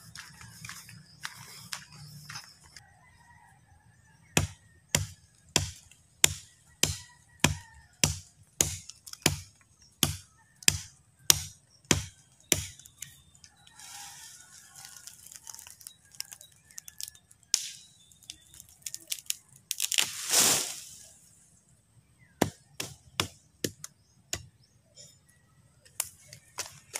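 A bolo (machete) hacking at the base of a thin sapling trunk: a steady run of about fifteen sharp chops, a little under two a second, then scattered further chops. About two-thirds of the way through comes a longer rushing, rustling burst between the chops.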